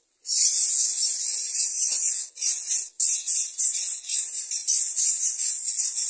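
Greater coucal nestlings hissing, a high rasping hiss in quick pulses with short breaks that starts suddenly just after the start: begging calls of chicks competing for food.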